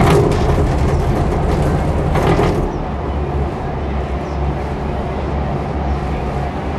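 Von Roll skyride gondola cabin, heard from inside, with a steady low rumble as it rides the cable. A sudden loud clatter comes right at the start and another about two seconds in, as the cabin rolls past a support tower's sheaves.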